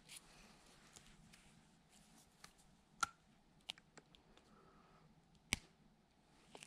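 Near silence in a small room, broken by a few sharp clicks and ticks from hands working monofilament fishing line while tying a dropper loop. Two of the clicks are louder, one about halfway through and one later.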